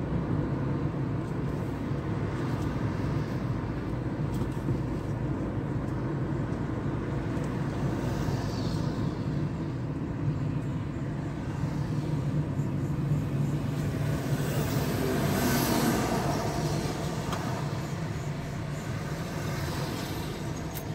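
Road noise heard from inside a moving car: a steady engine hum and tyre noise. It swells louder about three-quarters of the way through, then eases off.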